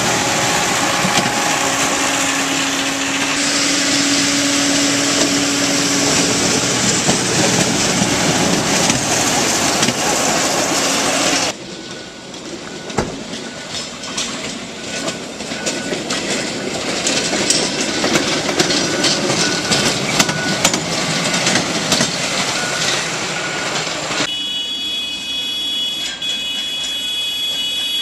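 Railroad maintenance-of-way machines rolling past on the track: a tamper's diesel engine and wheels going by close, then, after a sudden drop in level, a rail-mounted excavator towing a cart of crossties, with scattered clicks from the wheels on the rails. Near the end a few high steady tones come in.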